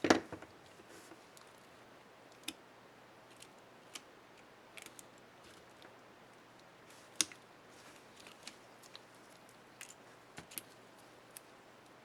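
Small plastic clicks and ticks from working on an Acer One 725 laptop's Shift keycap and its scissor-clip mechanism. The loudest, sharpest click comes right at the start, with scattered lighter clicks after it and another sharp one about seven seconds in.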